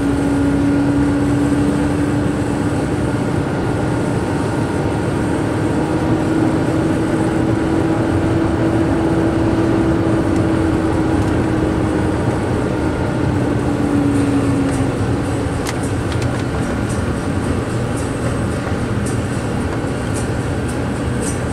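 Truck engine and tyre noise heard from inside the cab while driving at highway speed. It carries a droning tone that drifts slightly up and down and fades away about fourteen seconds in, with a few light ticks or rattles near the end.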